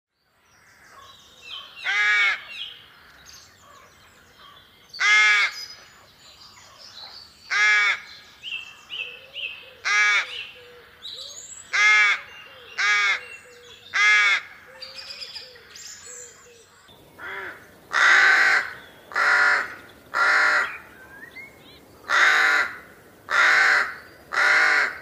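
Rooks cawing: single harsh caws a couple of seconds apart, with small birds chirping faintly behind. From about 17 s a louder run of caws follows, roughly one a second.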